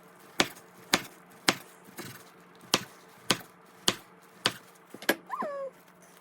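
Kitchen knife slicing kimbap rolls and knocking on a cutting board, about nine sharp chops roughly twice a second. Near the end there is a short squeak that falls in pitch.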